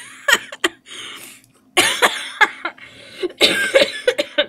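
A person's voice in short, breathy bursts that come in several clusters, with no words spoken.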